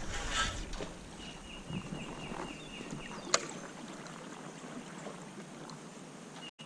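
Quiet water-and-kayak sounds: a faint steady hiss with a brief splashy rush at the start. A run of short high chirps at one pitch comes in about a second in, and a single sharp click or knock sounds about three seconds in.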